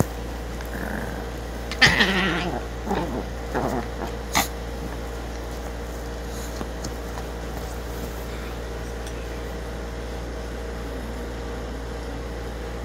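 Small chihuahua-type dog making short play-growling sounds while play-biting, clustered about two to four seconds in, with a sharp click near the end of that stretch. After that, only a steady low hum.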